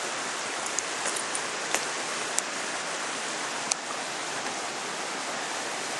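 Steady rushing hiss of running water, with a few faint clicks scattered through it.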